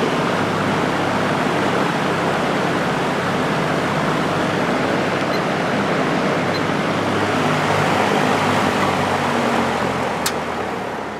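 Early-1960s GE F15W13 box fan running on high speed: a steady rush of moving air over a low motor hum. About ten seconds in there is a single click, and the sound starts to die away.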